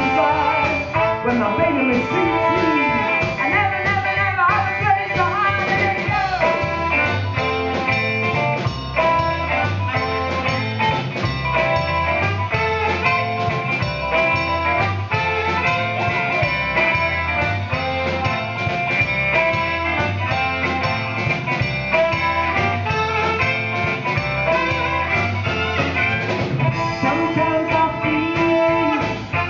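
Live soul band playing: drum kit, electric bass guitar and saxophone, with a woman singing. A steady bass-and-drum groove carries the tune, heavier from about seven seconds in.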